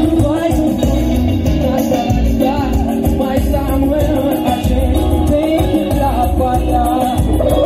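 Live band music over loudspeakers: a singer's voice over a heavy, steady bass beat.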